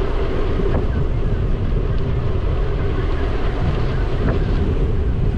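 Wind rushing over the microphone of a GoPro on a moving bicycle: a loud, steady roar of noise, with a couple of faint clicks from the bike.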